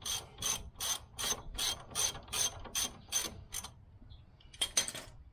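Hand ratchet wrench clicking in an even rhythm, about ten strokes at under three a second, as a suspension ball joint nut is worked loose; after a short pause, two more quick clicks near the end.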